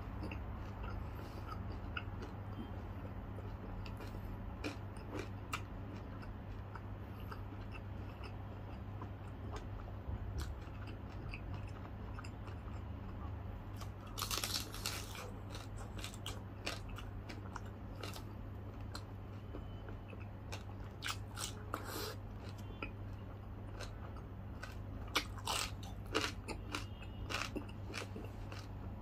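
Chewing and crunching of crispy deep-fried pork belly skin (lechon kawali), with scattered crackly crunches throughout. There is a loud cluster of crunches about halfway through and more near the end, over a steady low electrical hum.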